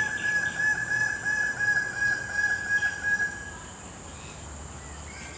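A long animal trill held at one high pitch and pulsing several times a second, which stops about three and a half seconds in, over a steady thin high whine.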